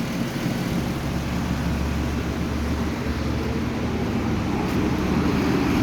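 Kia Cadenza's V6 engine idling steadily, running again after a wiring fault that had blown three fuses and stopped it starting was repaired.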